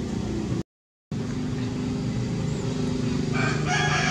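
A loud, long animal call with a stack of pitches starts a little over three seconds in, over a steady low drone. The sound cuts out completely for about half a second near the start, at an edit.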